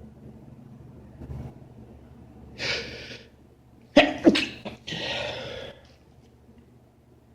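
A man sneezing during a sneezing fit: a breathy intake of air, then two explosive sneezes in quick succession about four seconds in, followed by a longer rush of breath.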